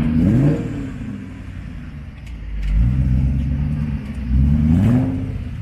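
Car engine idling, briefly revved at the start and again near the end, its pitch rising with each blip.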